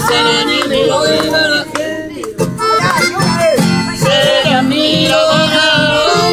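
Live Paraguayan polka played on acoustic guitars and a piano accordion: the accordion carries the melody over a steady strummed guitar rhythm.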